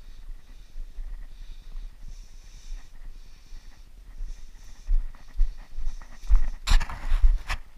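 Footsteps on a dirt and rock trail with a hiker's breathing close to the microphone, and a loud rustling noise lasting about a second near the end.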